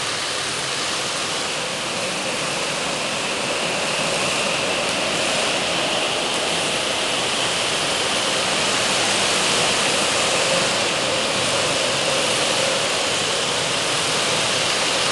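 Steady, noisy drone of go-kart engines running around an indoor track, blurred into an echoing wash by the hall, with a faint engine whine that swells slightly and fades.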